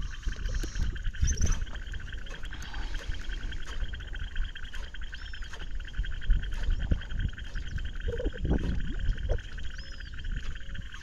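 A chorus of frogs calling in rapid, steady trills, with wind rumbling on the microphone.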